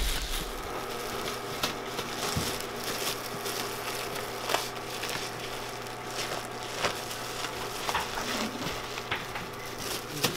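Thin plastic bags and plastic sheeting crinkling and rustling as handfuls of steamed sticky rice are packed into them, with scattered light clicks.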